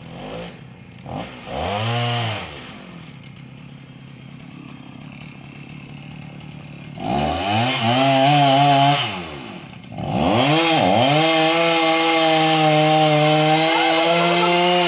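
Two-stroke chainsaw revved briefly twice with a low idle between, then held at full throttle from about ten seconds in, cutting steadily. This is the back cut after the face-cut wedge, with the tree about to fall.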